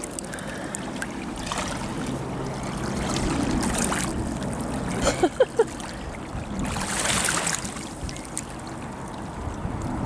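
River Thames water lapping and trickling at the water's edge, with a few short, sharp, louder sounds about five seconds in.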